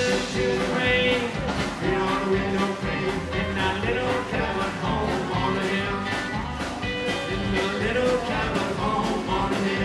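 Live rockabilly band playing: acoustic guitar, upright double bass and drum kit.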